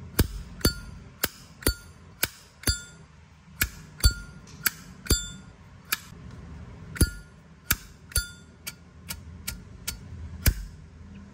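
Zippo lighter lid being flipped open and snapped shut over and over, about twenty sharp metallic clicks, each with a short bright ring. This is the lighter's characteristic 'sound' that it is being shown off for.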